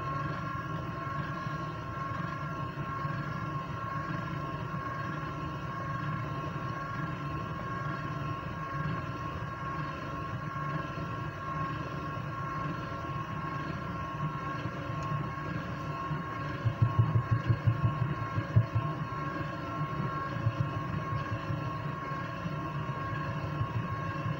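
KitchenAid Artisan Mini stand mixer running steadily, its beater mixing eggs into creamed butter and sugar: a steady motor whine over a low hum. About two-thirds of the way through comes a brief run of rapid low knocks lasting about two seconds.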